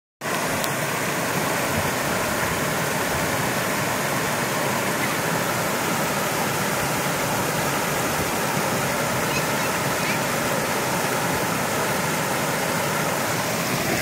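Small waterfall: water pouring over low, stepped rock ledges into a shallow river, an even, unbroken rush.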